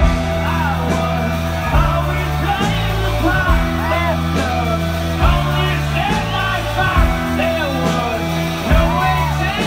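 Live rock band playing through a festival PA: sustained bass notes under a steady drum beat of about one hit a second, with electric guitars and the singer's voice over the top.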